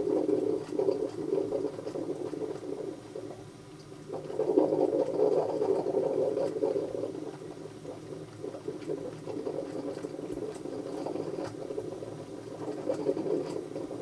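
Melitta Look Therm Timer filter coffee machine gurgling and bubbling as it brews, a steady watery sound that dips briefly about four seconds in.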